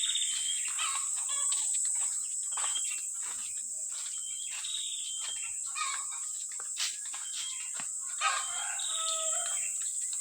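A rooster crows once near the end, over scattered bird chirps and a steady high insect drone.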